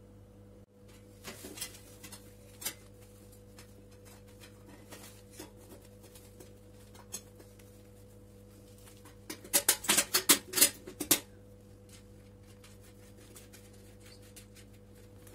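Metal parts clicking and knocking as a home-made sheet-metal bracket on a gas feed nozzle is handled and fitted into a burner opening of a stainless steel stove top. There are a few scattered clicks, then a quick run of louder sharp clicks about two-thirds of the way in, over a faint steady hum.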